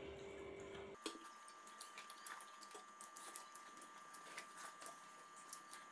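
Near silence with faint, irregular small clicks and ticks from hands pressing and mixing chopped food on a banana leaf, over a faint steady tone.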